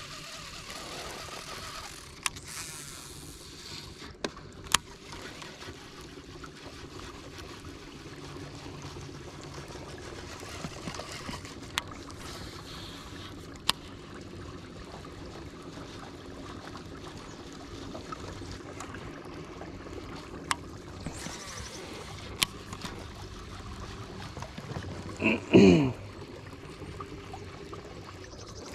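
Steady low hum of a bass boat's electric trolling motor with water trickling at the hull, broken by sharp single clicks from a baitcasting reel and two short hissy whirs of casts. About 25 seconds in comes one short, loud sound falling steeply in pitch.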